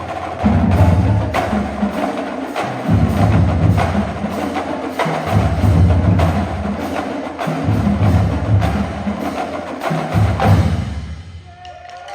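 High school marching drumline of snares, tenors and bass drums playing a backbeat groove, with sharp snare and rim strokes over repeating low bass-drum figures. The playing stops about 11 seconds in.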